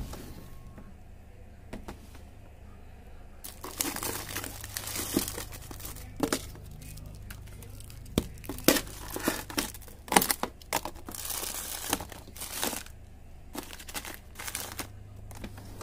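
Plastic food bags crinkling and rustling in irregular bursts as a hand rummages through a packed refrigerator drawer, starting a few seconds in after a single knock. A steady low hum runs underneath.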